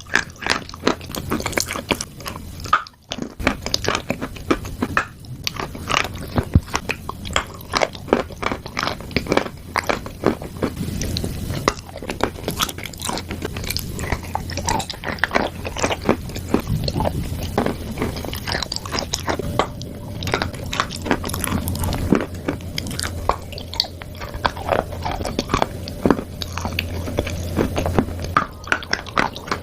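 A person biting and chewing chalk and clay, heard close up: dense, crisp crunching with a brief pause about three seconds in.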